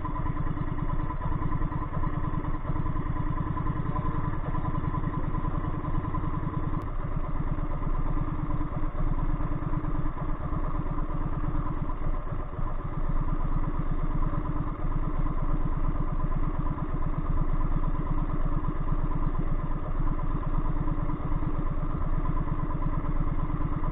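A small boat's engine running steadily at a constant speed, with a fast, even chugging.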